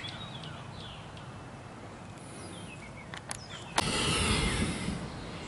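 Faint songbird chirps, each a quick falling note. A couple of sharp clicks follow, then a sudden burst of rustling noise a little under four seconds in, which is the loudest sound.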